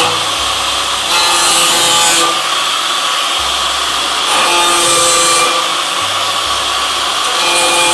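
Handheld angle grinder with a cutting disc running against the rim of a stainless steel sink, cutting small notches in the metal. A steady high grinding hiss that swells louder three times as the disc bites in.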